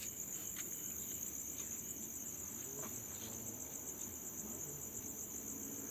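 Crickets chirring at night: a steady, high-pitched trill that goes on without a break.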